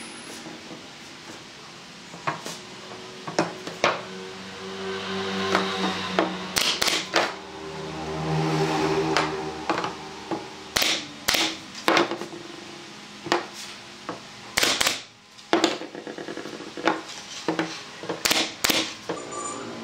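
Nail gun firing brads into the corners of a pine frame: a series of sharp shots at uneven intervals, some in quick pairs, with knocks of the wood and tool being handled in between.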